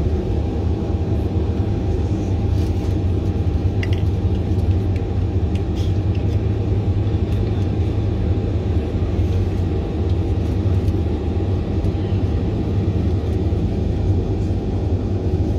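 Steady low rumble of a jet airliner heard from inside the cabin while it taxis on the ground.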